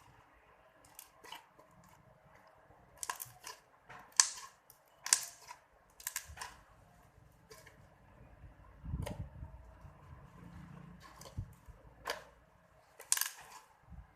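Slime being handled by hand, making irregular sharp pops and clicks, with a duller low sound about nine seconds in.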